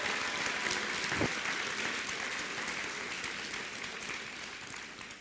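Audience applause that slowly dies away toward the end, with a single low thump about a second in.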